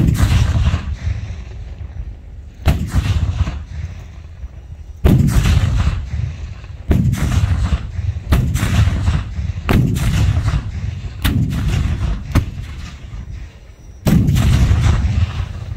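Black-powder cannons firing a salute: about nine loud booming reports a second or two apart, each trailing off in a low rolling rumble.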